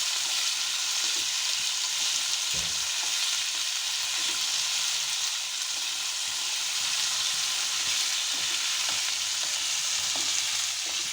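Tomatoes, onions, chillies and dal frying in hot oil in a pan: a steady sizzle, with a few light knocks of a spoon stirring.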